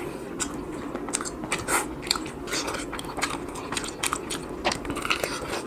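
Biting and chewing crispy fried chicken close to the microphone: irregular crunches and crackles of the coating, several a second.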